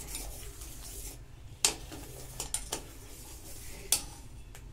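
Metal spoon stirring curdled milk in a steel pot, clinking against the pot: two sharper clinks, about a third of the way in and near the end, with softer scrapes and taps between. The milk has just split into curds and whey with lemon juice for paneer.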